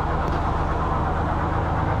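A heavy engine running at a steady idle, with an even low drone, from the machinery used to fill the truck during the cranberry harvest.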